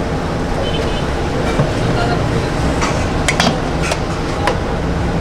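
A steel spoon clinks sharply against steel plates and chutney bowls several times as chutney is ladled out, over a steady low rumble.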